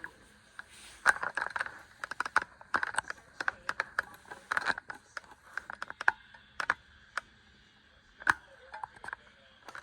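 Irregular light clicks and taps of things being handled, coming in quick clusters with short gaps.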